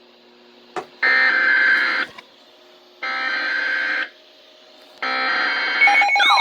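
Three SAME digital header bursts from a weather radio, each a harsh buzz about a second long with a second's gap between them, encoding a new weather alert. A warbling, sweeping alert tone begins right after the third burst, near the end.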